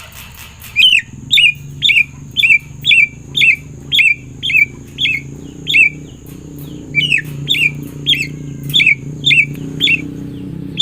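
Javan myna (jalak kebo) calling: a string of short, sharp notes, each falling in pitch, about two a second, broken by a brief pause near the middle before a second run.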